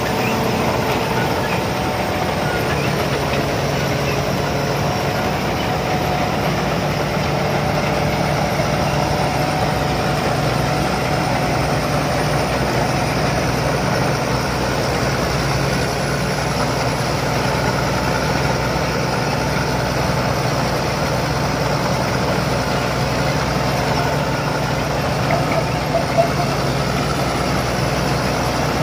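Rice combine harvester's engine running steadily at a constant pitch.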